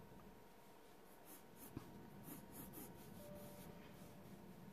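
Faint scratching of a coloured pencil on sketchbook paper, a series of short strokes, with one light tick a little under two seconds in.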